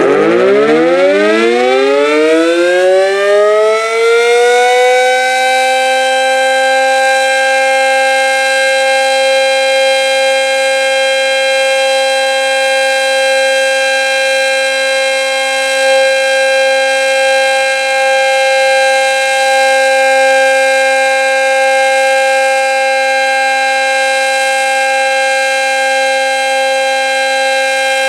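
Decot Red Arrow Model 12 siren winding up from low speed, its pitch climbing for about six seconds and then holding one steady, loud tone: the steady Alert signal.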